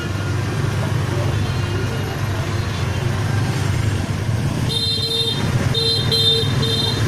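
Street traffic with a steady low engine rumble, and from about two-thirds of the way in a vehicle horn tooting in several short beeps.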